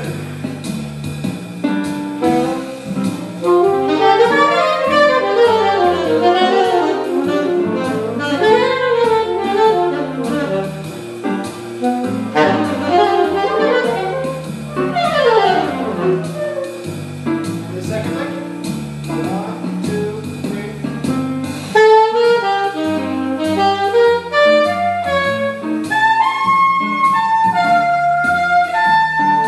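Jazz with a saxophone playing quick, winding melodic runs over a bass line, turning to shorter, higher held notes about two-thirds of the way through.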